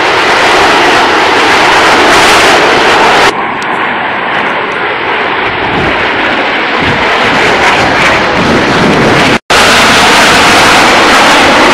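Jet noise from a formation of Snowbirds CT-114 Tutor jets flying overhead, a loud, steady rush that changes abruptly about three seconds in and drops out for a split second near nine seconds.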